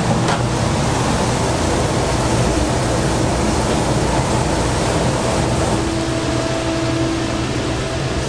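Steady rushing noise with a low hum, from restaurant kitchen equipment running. A faint steady tone joins about six seconds in.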